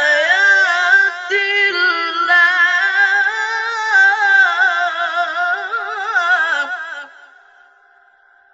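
Quran recitation: a single high voice draws out the word 'ayat' in one long, ornamented melodic phrase. The voice stops about seven seconds in and a faint ringing tail dies away.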